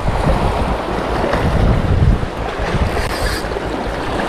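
Wind buffeting the microphone in a fluttering low rumble, over the wash of sea surf against a rocky shore.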